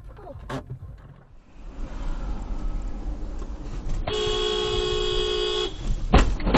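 Road and engine noise inside a moving car, then a car horn sounding one steady blast of about a second and a half. A loud thump follows shortly after the horn stops.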